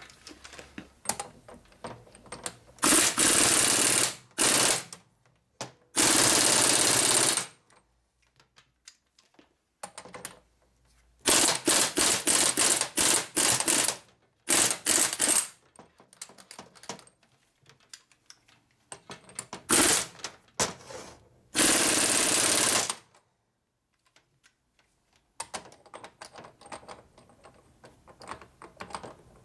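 A power tool running in short rattling bursts, about six of them, each stopping suddenly. It is driving a threaded part in and out on thick assembly lube to burnish tight, mismatched threads. Faint handling clicks come between the bursts.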